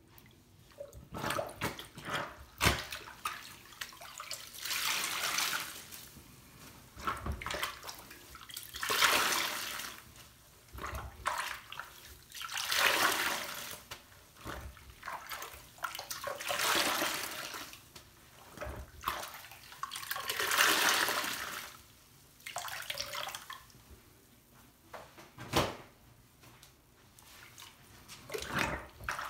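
Large soaked sponges squeezed and pressed by hand under soapy water in a sink, each squeeze pushing out a rush of water and suds in slow swells about every four seconds, with wet squelches and small sharp splashes between.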